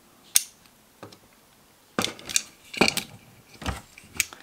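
Small metal parts of a Goat Guns miniature AK-47 replica clicking and scraping while being pushed together by hand as the dust cover is worked into place. There is a single sharp click about half a second in, then bursts of light clicks and taps from about two seconds on.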